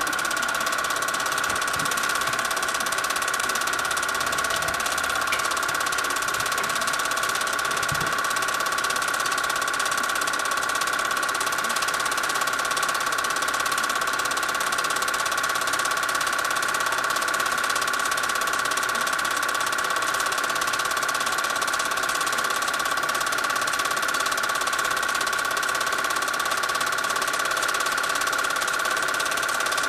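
Home-movie film projector running: a steady mechanical whir with a constant high whine.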